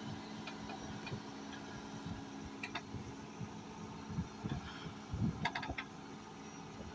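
Backhoe engine running steadily, with irregular low thuds and a few short clanks about three seconds in and again near five and a half seconds.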